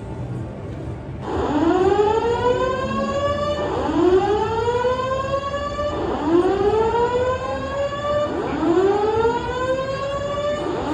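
Building alarm signal sounding a repeating rising whoop tone, one sweep every two and a half seconds or so, starting about a second in. The alarm has been triggered and its cause is still being investigated.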